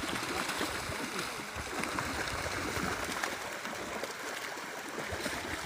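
Steady rush of running water with small splashes scattered through it, and faint voices in the background.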